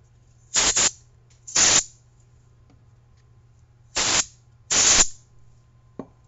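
Rubber bulb hand air blower squeezed four times, short puffs of air in two pairs about a second apart, blowing dust off a night-vision ocular lens before it is installed. A light tap near the end.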